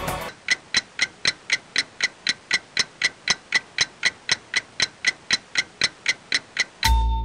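Clock-like ticking sound effect, even and steady at about four ticks a second. Music with a heavy bass comes in near the end.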